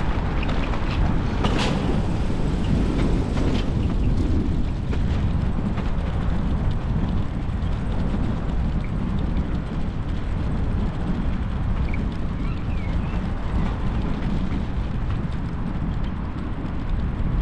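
Wind rushing over the microphone and bicycle tyres rolling on a tarmac path, a steady low rumble from a moving bike. There is a single sharp rattle about a second and a half in.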